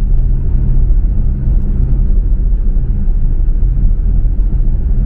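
Passenger boat's engines running, a loud steady low rumble heard inside the cabin while the boat crosses open sea.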